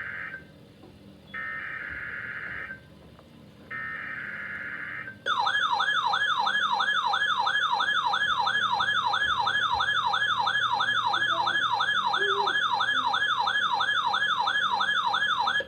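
Three buzzing SAME digital header bursts of a NOAA Weather Radio required weekly test, each about a second and a half long. They are followed by a loud warbling alert tone sweeping up and down about three times a second, which cuts off suddenly near the end. These are the alert tones that set off tone-activated weather alert receivers.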